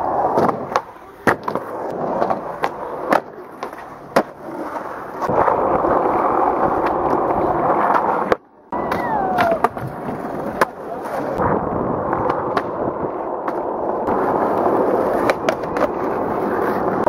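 Skateboard wheels rolling, broken by repeated sharp clacks of the board striking the ground. The sound cuts out briefly about eight seconds in.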